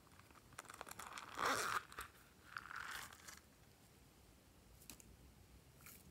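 A small plastic container of hard clay sprinkles being handled and the sprinkles tipped out into a hand, giving two short crunchy rattles, the louder about a second and a half in and another about three seconds in, with light clicks of pieces and plastic around them.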